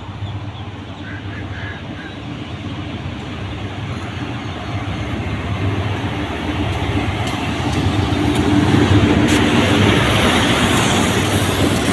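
Diesel locomotive engine running with a steady low hum that grows louder over the first several seconds as it draws nearer. A few sharp clanks come through near the loudest point.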